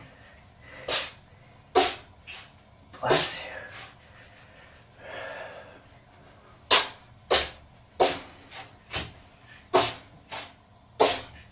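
A cat sneezing again and again: about a dozen short, sharp sneezes, a few at first and then a quick run of them in the second half.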